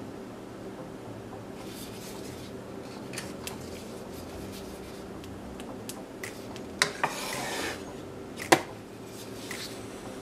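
Kitchen handling sounds from dishes and utensils: scattered light clicks, two quick knocks followed by a short scrape about seven seconds in, and one sharp knock a little after, over a steady low hum.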